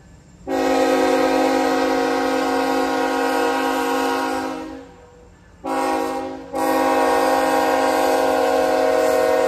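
Kansas City Southern diesel locomotive's multi-chime air horn sounding a long blast, a short blast about six seconds in, then another long blast. Together with the blast just before, this is the long-long-short-long pattern of a grade-crossing warning. The locomotive's engine runs underneath.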